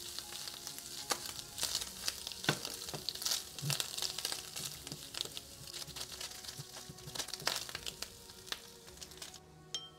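Diced bacon and ham frying in a stainless steel skillet, a steady sizzle with many quick crackles while a silicone spatula stirs them. The sizzle cuts off near the end.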